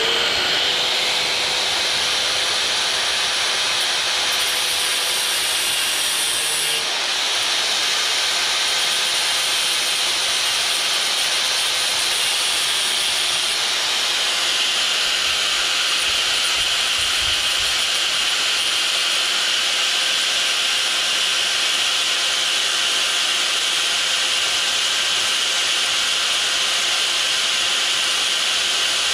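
Electric angle grinder running steadily under load, its disc grinding through metal as it cuts the fuel solenoid off a Nikki carburetor. A steady motor whine sits under a loud, even grinding hiss.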